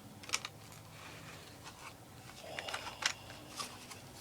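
Toy packaging being handled and opened: a few short crinkles and clicks, one just after the start and a cluster around three seconds in.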